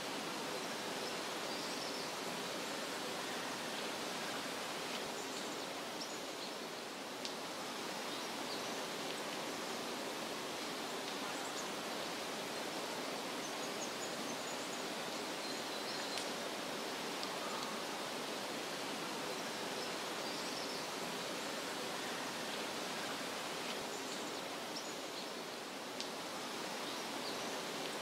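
Steady, even rushing outdoor nature ambience, with faint short high chirps now and then.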